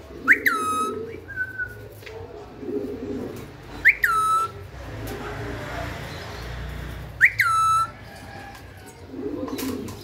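Alexandrine parakeet giving a short whistled call three times, about three and a half seconds apart: each a quick upward flick that drops to a held note.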